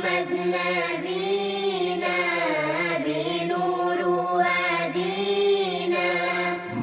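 Arabic nasheed sung without instruments: a voice holding long, ornamented notes that bend up and down, over a steady low drone.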